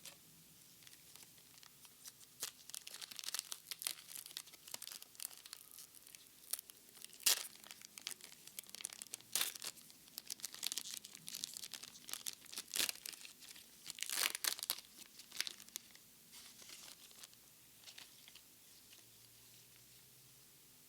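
Foil Pokémon booster pack wrapper being torn open and crinkled in gloved hands, an irregular run of sharp crackling tears and rustles. Loudest about a third of the way in and again past halfway, then it dies down for the last few seconds.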